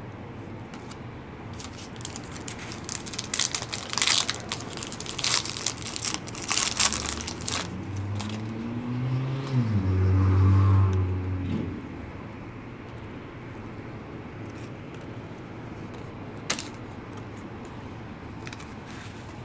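Trading cards and foil pack wrappers handled by hand: a run of sharp crackles, crinkles and clicks. This is followed by a loud, low hum of a few seconds that steps down in pitch before stopping.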